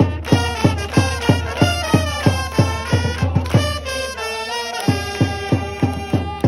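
Baseball cheering-section band: trumpets playing a cheer melody over a steady drum beat of about three beats a second. The drum drops out for a moment about four seconds in.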